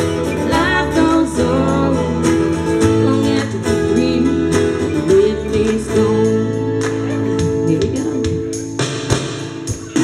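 Live rock music: a woman singing over a strummed guitar through a small PA.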